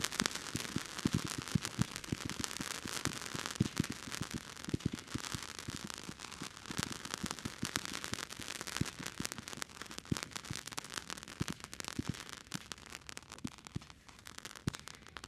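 Nico Light Tunnel firework cake, a battery of Roman candles fired one after another. Low thumps of the candles launching stars sound amid dense crackling from gold crackling stars and a crackling fountain. The shots thin out and the crackle fades toward the end.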